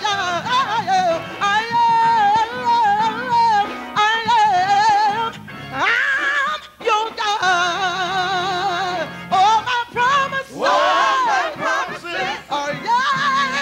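A woman singing a gospel solo without clear words, in long held notes with wide vibrato and runs up and down, over steady held chords from the accompaniment.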